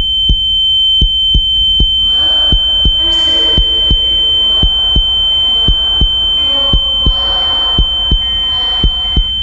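Sound-design heartbeat: fast, regular low thuds, about two to three a second, under a steady high-pitched ringing tone and a low hum. Muffled, echoing sounds swell and fade in the middle.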